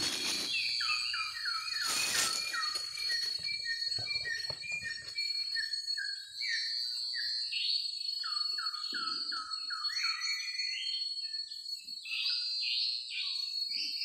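Forest birdsong: a bird sings phrases of quick, short descending whistled notes, repeated several times, over a steady high insect drone. A couple of brief rustles near the start and about two seconds in.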